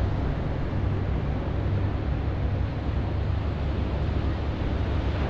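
Steady wind rumble on the microphone over the broad rush of surf on an open beach.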